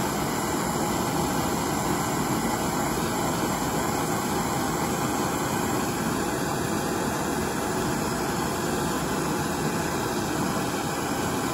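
Handheld blowtorch flame burning with a steady, loud hiss.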